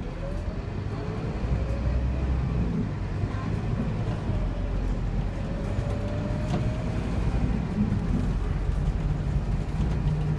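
Interior sound of a Scania K230UB single-deck bus on the move: steady low engine rumble under a whine that rises in pitch in several sweeps as the bus accelerates through its gears.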